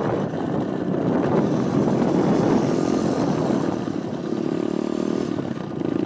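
Ride noise from an electric dirt bike moving over rough, sandy ground: a steady rushing noise, joined about four seconds in by a steady low hum.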